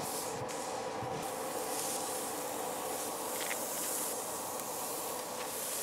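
Raw ground-beef hamburger patties sizzling on the hot grate of a charcoal kettle grill, a steady hiss. A few faint taps come as more patties are laid down.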